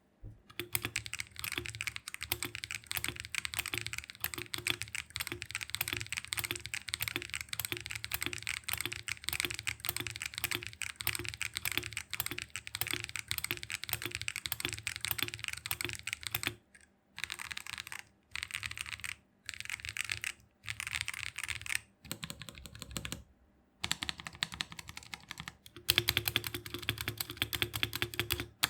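Typing on a GMK67 mechanical keyboard fitted with Akko Ocean Blue switches. Steady fast key strikes run for about the first half. After that the typing comes in short bursts with brief pauses between them, and it turns louder again near the end.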